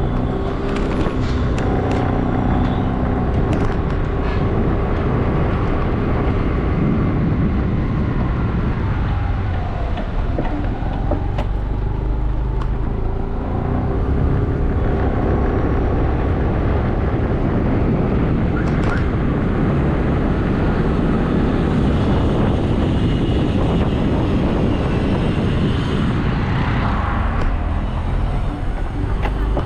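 Road traffic and driving noise: a steady rumble of engine and tyres with other vehicles passing.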